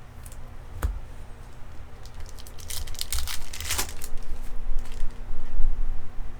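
Baseball trading cards and their foil pack wrappers being handled: crinkling, card-edge slides and light clicks, with a busier stretch of rustling and tearing in the middle.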